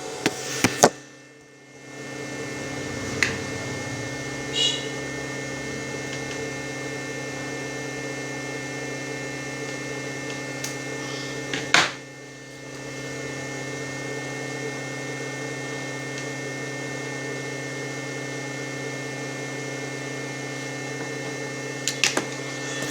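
A 28,000 W IGBT electric fish-shocking inverter running with a steady electrical hum and whine. It cuts out briefly with sharp clicks about a second in and again near the middle, then builds back up.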